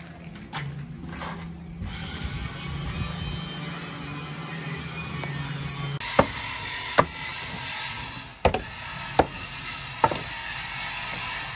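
Steady low hum, then a steel bar worked against a rusty steel deck: sharp metallic strikes, about one a second, in the second half.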